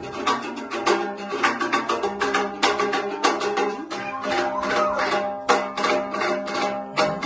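Komuz, the Kyrgyz three-string fretless lute, strummed in a fast, steady run of quick strokes.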